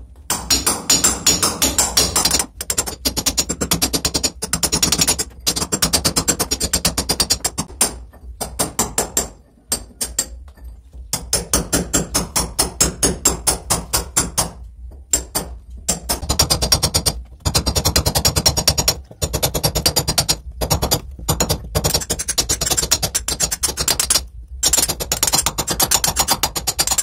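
Claw hammer striking a cold chisel into a red-brick wall in rapid, repeated blows, several a second, with a few short pauses: a channel is being chased into the brickwork to take a water pipe.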